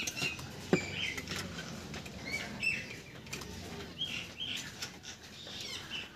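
Birds chirping on and off in short high chirps, with a few light clicks from pliers twisting aluminium wire.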